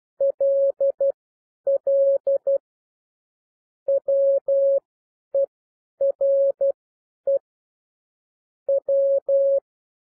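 Morse code (CW) sent at 12 words per minute as one steady tone keyed on and off in dots and dashes, spelling out the letters L L, W E, R E, W of "all were we".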